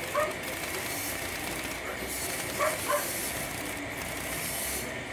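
Impact wrench running on the crankshaft nut of a motorcycle engine, tightening it: a steady hiss, with three short squeaks about a quarter second, two and a half and three seconds in.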